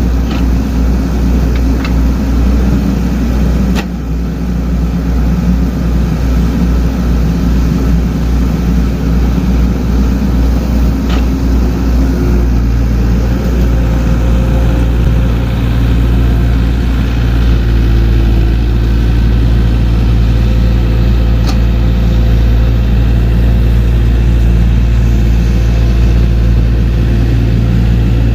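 Diesel engine of small earthmoving machinery running steadily under work, settling into a steadier note about halfway through. A few sharp metallic knocks sound now and then.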